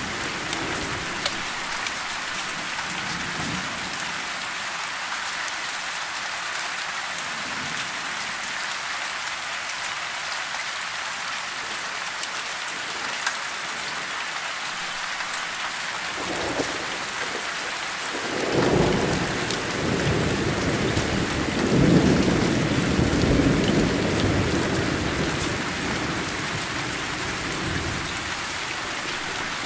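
Steady rain, with rolling thunder coming in a little past halfway: a first low rumble, then two louder peals that die away over several seconds.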